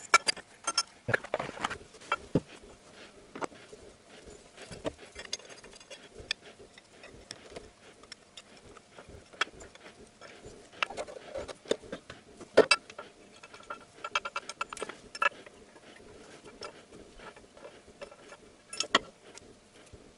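Irregular small metal clicks, taps and scrapes as a metal engine bracket and its bolts are handled and offered up by hand, with a few sharper knocks around the middle and near the end.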